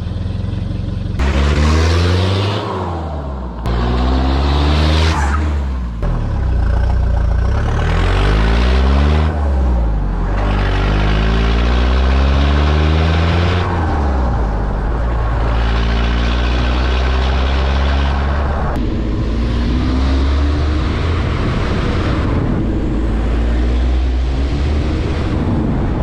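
Nissan Terrano diesel engine running through an open exhaust cut back to half its pipe, loud and deep. It accelerates several times, each time rising in pitch and then dropping back at a gear change, over a steady low drone.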